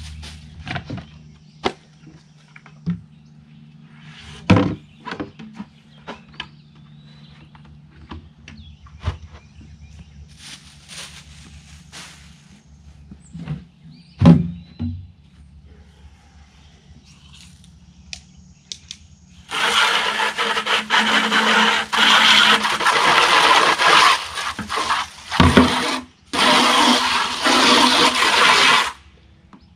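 Plastic buckets, lids and waterer pans knocking and clunking as they are handled and set down, then a garden hose spraying hard onto the plastic waterer parts, a loud, steady rush of water that stops briefly twice near the end.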